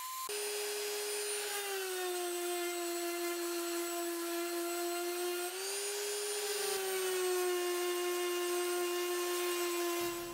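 Random orbital sander running, a steady motor whine sanding the faces of end-grain branch slices. Its pitch drops slightly about a second and a half in, rises briefly around the middle and drops again, then cuts off near the end.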